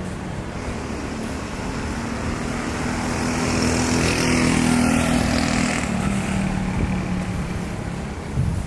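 A motor vehicle's engine passing close by, swelling to its loudest about halfway through and then fading away. A brief knock near the end.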